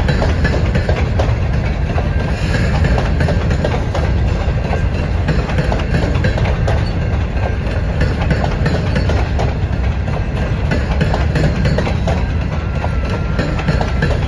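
Freight train of open-top hopper cars rolling past close by: a steady low rumble of steel wheels on rail with scattered clicks and clanks from the trucks and couplers. A faint thin squeal comes in near the end.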